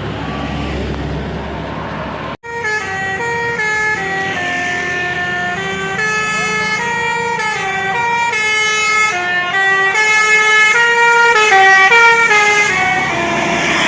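Bus telolet horn of the Basuri multi-trumpet air-horn kind playing a melody of held notes that step up and down in pitch, starting about two seconds in after a brief break in the sound. Before it, the rumble of traffic and engine noise.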